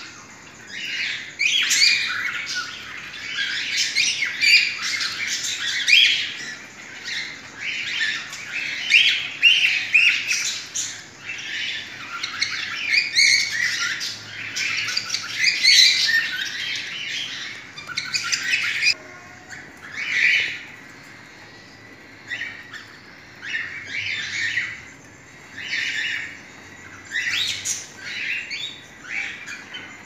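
Cockatiels calling: raspy squawks and chirps come thick and nearly nonstop for the first two-thirds, then in short separate bursts every second or two.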